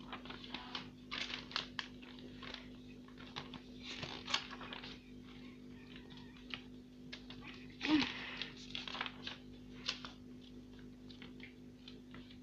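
Paper pages of a homemade notebook rustling as they are turned and handled, in many short irregular strokes with a louder rustle about eight seconds in. A steady low hum runs underneath.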